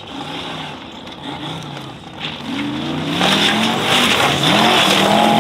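Off-road race buggy's engine revving hard in repeated rising surges, getting much louder from about three seconds in, with a rush of spinning tyres throwing loose gravel.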